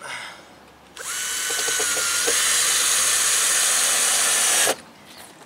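Handheld power drill run into the wooden curb form at a stake for a little under four seconds. Its pitch rises a little partway through, and it stops suddenly.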